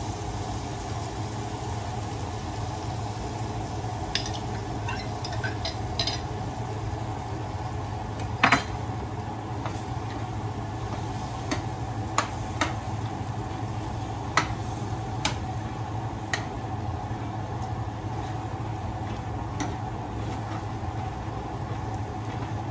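A metal spoon clinking and scraping against a glass jar and a nonstick frying pan as salsa is spooned over potatoes and stirred: scattered sharp clicks, the loudest about eight seconds in, over a steady low hum.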